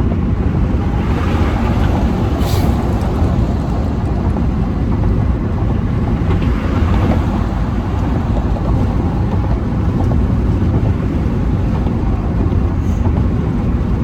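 Car driving at speed: a steady, loud rumble of road and wind noise heard from inside the cabin.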